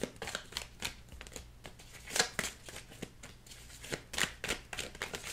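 A deck of tarot cards being shuffled by hand: an irregular run of quick snaps and slaps of card on card, the loudest about two seconds in.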